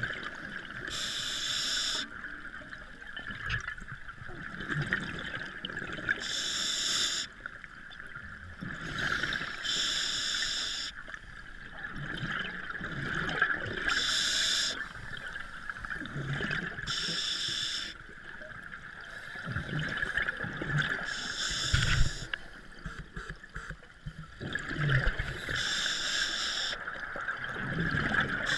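Scuba breathing heard underwater through the camera housing: a regular cycle of regulator hiss and bubbling, with about seven bursts every three to five seconds over a steady high hiss.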